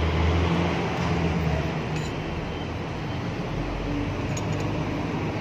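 Steady background hum and hiss with a low rumble that is strongest in the first second or so, and two faint light clinks, about two seconds in and near the end.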